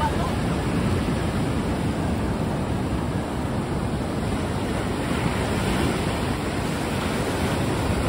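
Ocean surf breaking and washing up the beach: a steady rush of water.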